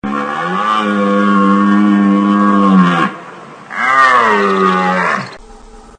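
Water buffalo mooing twice: a long, steady call of about three seconds, then after a short pause a shorter call that rises and falls in pitch.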